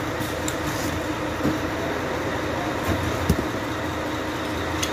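Metal gearbox parts, a synchro ring and gears, clinking as they are handled and set down, with a few light clicks and one sharper knock about three seconds in, over a steady background hum.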